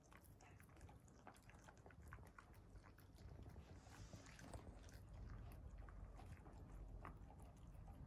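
Two Akita dogs faintly chewing and biting chunks of roasted sweet potato, with many small irregular clicks and crunches.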